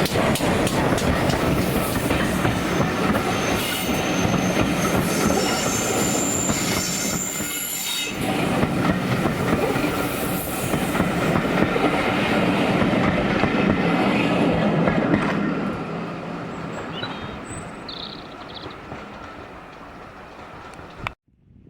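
Train passing close by, its wheels clattering over the rail joints with a faint high squeal. It fades after about fifteen seconds and cuts off abruptly near the end.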